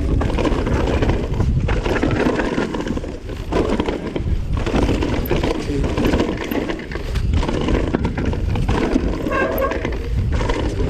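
Vitus mountain bike riding over a rough trail: a continuous rumble and clatter of tyres and rattling frame. About nine seconds in, the disc brakes briefly squeal.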